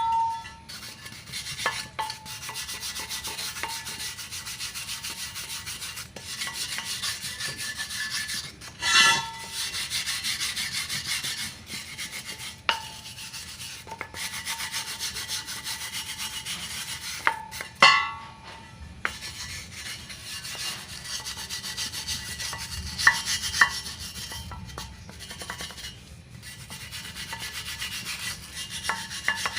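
Continuous scraping and scrubbing on a metal motorcycle wheel rim, working off paint softened by remover. A few sharp metallic clinks with a short ring break in, about a third and two-thirds of the way through.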